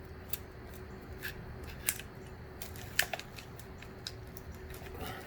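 Sparse light clicks and taps of small parts and hand tools being handled, with a sharper click about three seconds in, over a faint steady hum.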